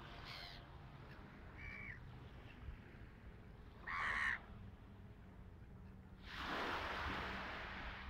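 Gulls calling: three short calls, the loudest about four seconds in. Near the end a wave breaks and washes up the pebble shore.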